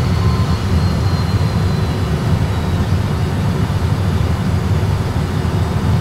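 Steady low rumble in an Airbus A320 cockpit as the airliner rolls off the runway onto the taxiway after landing, engines back at idle, with a faint high whine fading out in the first couple of seconds.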